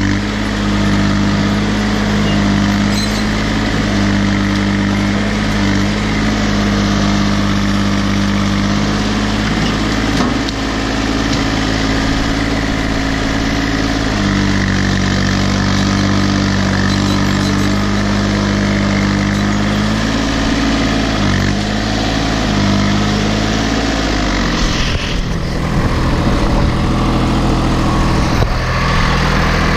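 Case 235 compact tractor's diesel engine running steadily, its pitch shifting a few times as the revs change; near the end the even note breaks up into a rougher rumble.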